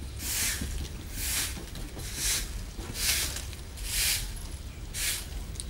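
Short hand broom sweeping a bare earth courtyard: a row of swishing strokes, about one a second.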